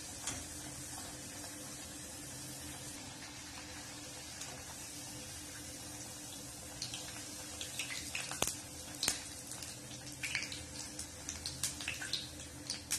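Hot oil sizzling steadily in a steel kadhai as a masala poori deep-fries, with crackling pops coming thicker from about halfway through. There are a couple of sharp clicks.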